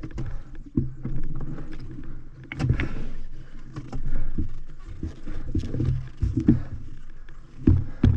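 Honda CR500 single-cylinder two-stroke engine chugging unevenly at low revs, surging up and down, with scattered knocks as the bike creeps over a rocky trail.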